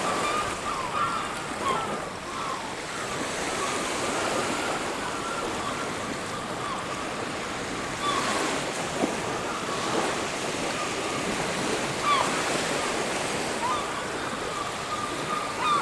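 Surf washing steadily on a beach, with short, high bird calls repeating throughout.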